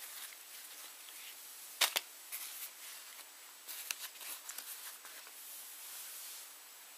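Handling noise over a steady hiss: two sharp taps just before two seconds in, then a run of small rustling ticks from about four to five seconds, as a hand touches silicone swim caps.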